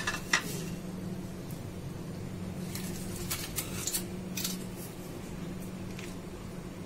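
A few faint clicks and taps of frozen kulfi, paper cups and plastic plate being handled on a stone kitchen counter, over a steady low hum.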